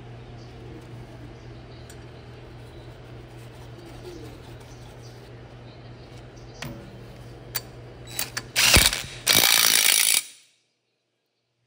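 Cordless DeWalt impact wrench hammering the impeller nut tight onto the pump shaft. It comes in two short bursts and then one longer run of about a second, which cuts off sharply. Before it there is a steady low hum and a few clicks of the nut and socket being handled.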